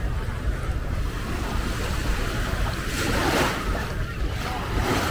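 Small sea waves washing in the shallows at the shoreline, with a louder wash about three seconds in and again near the end. Wind buffets the microphone in a steady low rumble.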